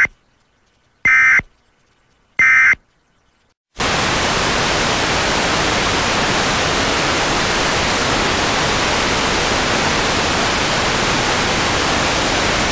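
Emergency Alert System digital data bursts: the end of one harsh screeching burst, then two more about a second apart, typical of the end-of-message code that closes an EAS alert. About four seconds in, a steady static hiss starts and runs on.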